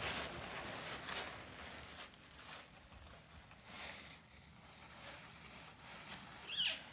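Faint, scattered rustling of tissue paper and soft scuffs of kittens' paws as they clamber over a basket full of tissue paper.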